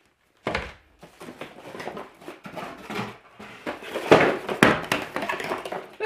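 Cardboard packaging and a plastic-wrapped part being handled: a knock about half a second in, then rustling and crinkling of cardboard and plastic bag, louder near the end with a couple of sharper knocks.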